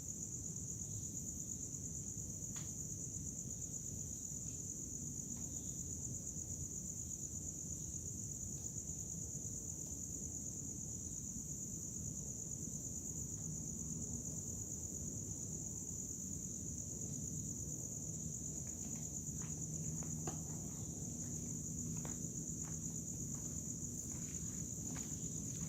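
Crickets trilling in a steady, unbroken high-pitched chorus over a low background rumble, with a few faint clicks and crackles in the last several seconds.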